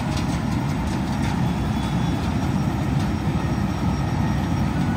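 Combine harvester running steadily as it cuts and threshes standing rice, a continuous low machine rumble.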